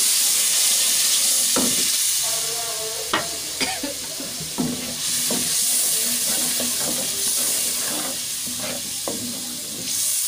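Onion-tomato masala sizzling as it fries in oil in an aluminium pot, while a wooden spatula stirs and scrapes it. The spatula knocks on the pot several times, most sharply a few seconds in.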